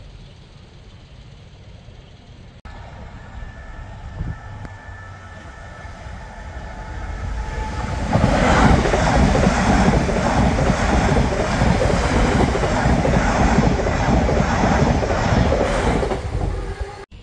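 Greater Anglia Stadler FLIRT electric multiple unit passing over a level crossing: rail noise builds from about six seconds in, then a loud rumble with rapid wheel clatter over the crossing for about eight seconds, cutting off near the end.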